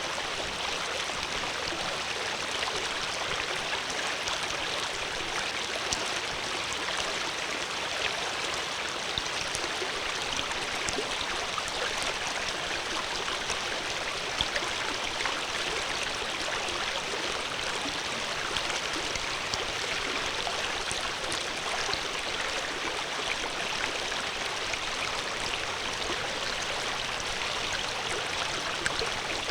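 Water flowing and splashing steadily over rocks, like a stream, with small bright drips and splashes scattered through.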